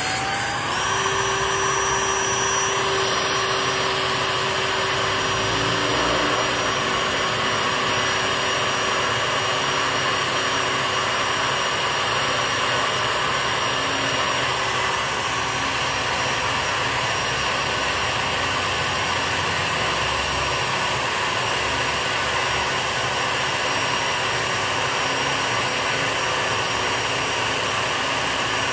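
Power drill spinning up in the first second, then running steadily with a constant whine while pre-drilling a hole into steel for a screw-in blunt-tip stud.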